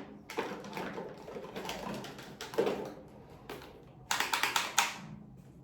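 Clicks and rustles of small plastic skincare containers being handled, with a quick run of sharp clicks about four seconds in.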